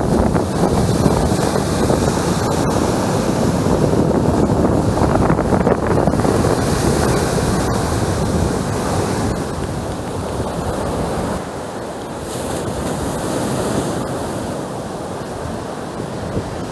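Surf of a stormy Sea of Azov breaking on the shore, a continuous loud rush with wind buffeting the microphone.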